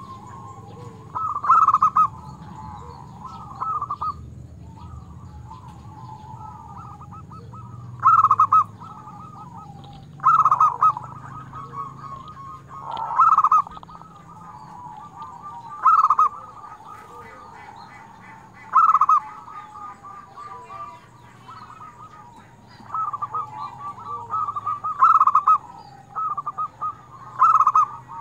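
Zebra dove (perkutut) singing: loud, clipped cooing phrases every few seconds, with quieter rattling trill notes running between them.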